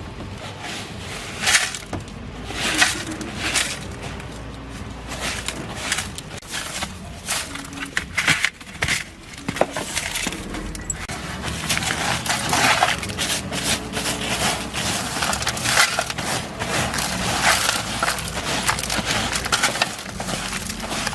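Irregular knocks, scrapes and crunches, as of hand work with tools.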